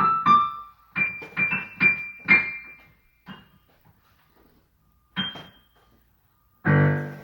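Piano played: a quick run of single notes for about three seconds, two lone notes, then one loud low chord struck near the end.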